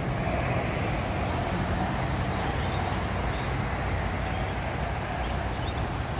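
City buses running at a bus interchange: a steady engine hum mixed with road traffic noise. A few short, faint high chirps come in over the second half.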